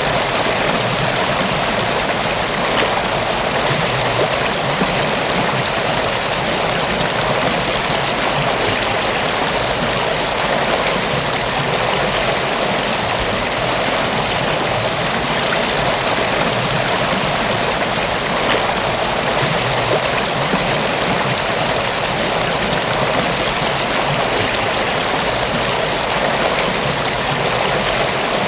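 Mountain waterfall and stream: a steady rush of falling, splashing water.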